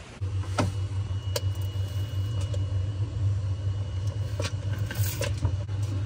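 A steady low machine hum starts just after the beginning and runs on, with a few light clicks and taps of hands working at a refrigerator's aluminum freezer evaporator coil.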